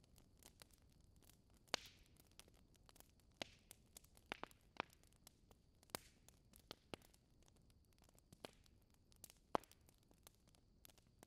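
Wood fire crackling: irregular sharp pops over a faint hiss, the two loudest about two seconds in and again near the end.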